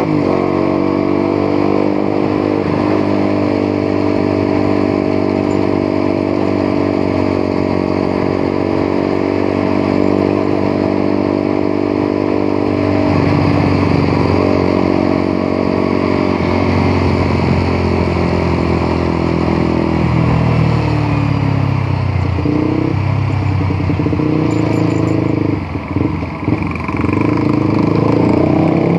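Single-cylinder engine of a Honda CBR150R under way. It revs up at the start and then holds a steady pitch. The pitch changes a little before halfway and again in the last third, with a few brief drops in level near the end.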